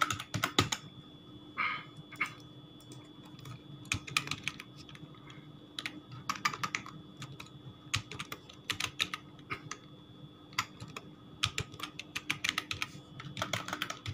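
Computer keyboard typing in short bursts of keystrokes separated by pauses, as a password is entered, over a faint steady hum.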